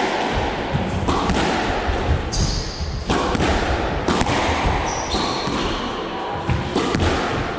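Squash rally: the ball cracks off rackets and the walls every second or two, echoing in the enclosed court, with short high squeaks from shoes on the wooden floor between shots.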